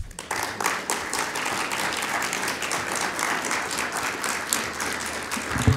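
Audience applauding, breaking out at once and holding steady, with a single dull thump near the end.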